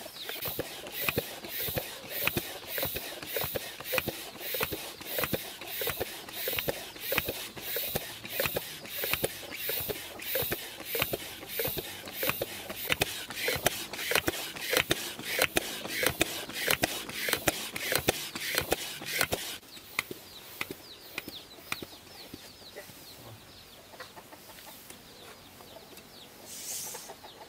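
Floor pump with a pressure gauge worked in steady strokes, about two a second, inflating a freshly patched bicycle-type inner tube; the pumping stops about two-thirds of the way through. Chickens cluck in the background.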